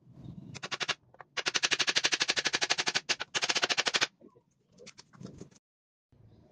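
Rapid, even clicking from a tool being worked on a wooden cage frame, in three runs with short breaks, then a few fainter clicks; the sound stops abruptly shortly before the end.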